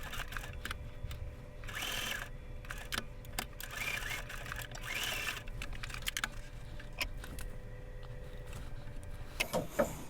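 Domestic sewing machine stitching slowly through hook-side Velcro and fabric, a run of rapid needle clicks over a steady motor hum.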